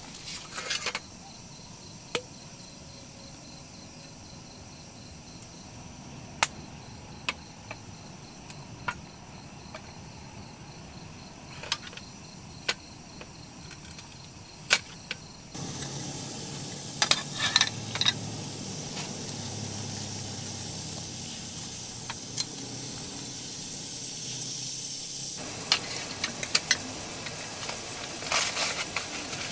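Crickets chirping in a fast pulsing trill over a steady outdoor background, with scattered sharp clicks and taps. About halfway through, the background steps up to a louder steady hiss with clusters of clicks.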